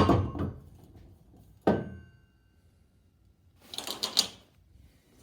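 Heavy metal parts being handled on a workbench: a sharp knock at the start, a metallic clank about two seconds in with a brief ringing tone, then a short rattling scrape about four seconds in.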